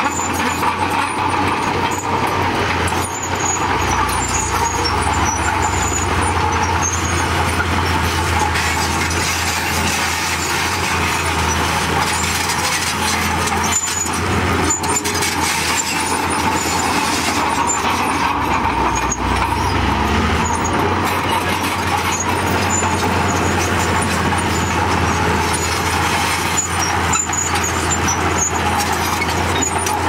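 Komatsu D31P crawler bulldozer's diesel engine running steadily as it pushes rocky soil, with the clatter of its steel tracks. The low engine drone is heavier through much of the middle.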